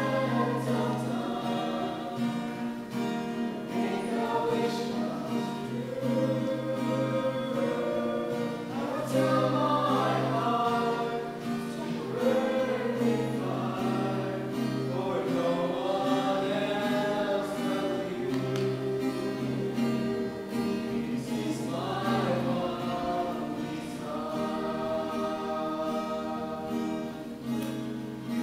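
Small mixed group of men's and women's voices singing a Christian worship song together, accompanied by a strummed acoustic guitar.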